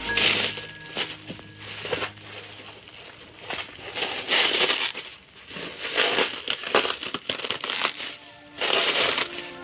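Packaging rustling and crinkling in irregular bursts as items are handled and unwrapped, with faint background music.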